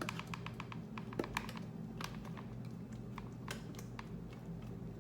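Food processor motor running steadily while blending hummus, with irregular sharp clicks and ticks over its low hum.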